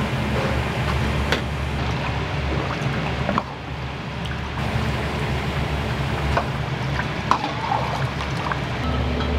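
Steady roar of a restaurant kitchen's gas wok burners and extractor fan, with scattered sharp clinks of metal utensils. The roar dips briefly about three and a half seconds in.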